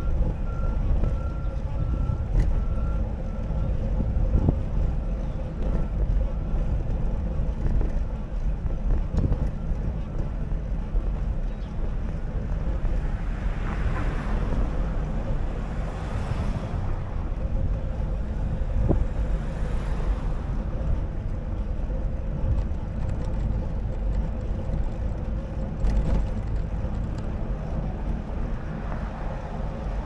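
Wind rumble on the microphone and street traffic, with a faint steady whine. A string of short, evenly spaced electronic beeps runs through the first few seconds, and a vehicle passes about halfway through and again near the end.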